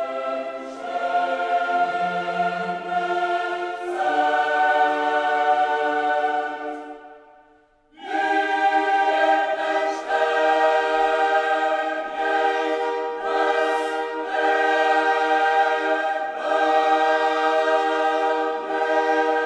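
Background choral music, a choir holding sustained chords. It fades out about seven seconds in and comes back abruptly a second later.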